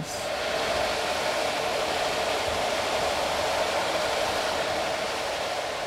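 Quarry stone-cutting saw running steadily, a dense whirring noise with a strong middle hum that eases off slightly near the end.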